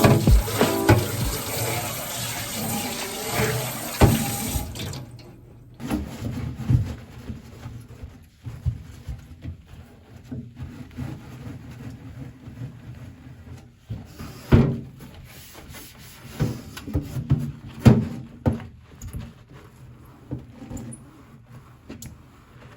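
Water running from a kitchen tap into a sink as things are washed, shut off about five seconds in, followed by scattered knocks and clatter of items being handled in the sink.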